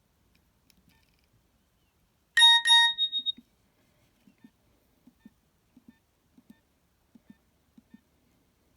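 A Nokia 6230i mobile phone's speaker plays a short electronic ringtone or alert: a quick run of about five buzzy beeps lasting about a second, starting roughly two and a half seconds in. Faint paired ticks follow at an even pace, about one pair every two-thirds of a second.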